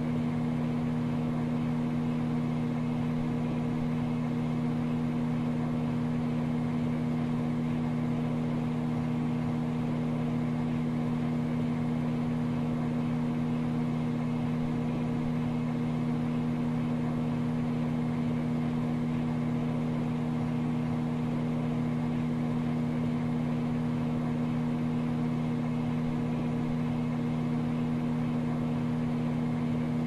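Microwave oven running: a steady, low, even hum that does not change.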